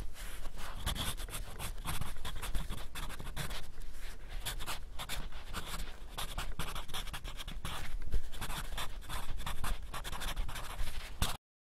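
Pen nib scratching across paper in quick, irregular strokes as a drawing is sketched. The sound cuts off suddenly near the end.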